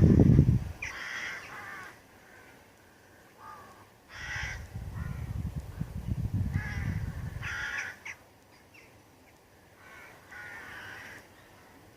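A bird giving short, harsh, rasping calls, repeated every second or two. A low rumble comes in right at the start and again from about four to eight seconds in.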